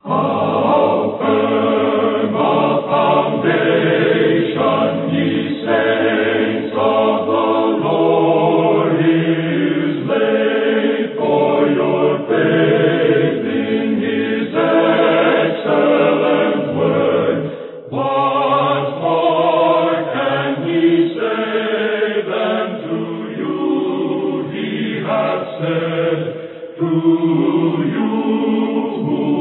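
A choir singing slow, held chords.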